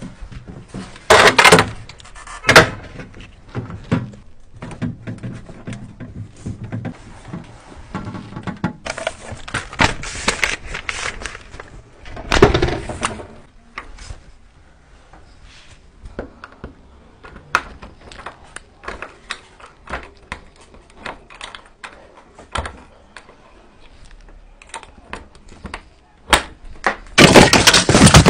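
Knocks, thunks and clatter of a refrigerator's shelves and door being handled. Near the end, a loud run of crackling and ripping as the cardboard packing box is torn.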